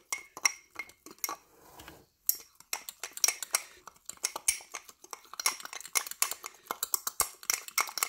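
A metal fork stirring flour and water in a small glass jar, its tines clinking quickly and repeatedly against the glass, with a brief pause about two seconds in. This is the mixing of a sourdough starter, working the water into all the flour.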